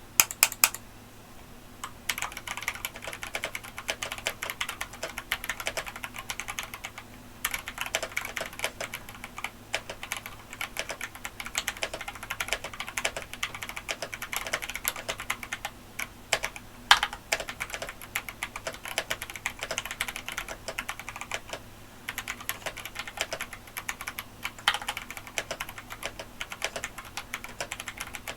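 Typing on a mechanical keyboard with lubed Hako Royal Clear tactile box switches: a few sharp key clicks, then steady rapid typing with two short pauses. Each keystroke has a scratchy, sharp tactile click that sounds closer to a clicky switch than to a tactile bottom-out.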